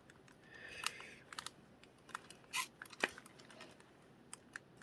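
Faint clicks and a brief scrape of plastic as a spudger pries at a Cozmo robot's head trim. There are a few sharp ticks, and the loudest click comes about three seconds in.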